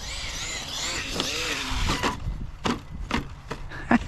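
RC short-course truck with a Hobbywing Max6 brushless motor running through thick grass: a high whine rising and falling in pitch, then several sharp knocks and cracks in the second half as it bounces and rolls over the ground.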